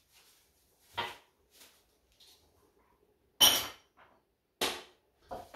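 Bowls and dishes being handled and set down on a kitchen counter: three sharp clatters about a second, three and a half seconds and four and a half seconds in, the middle one the loudest, with fainter clinks between.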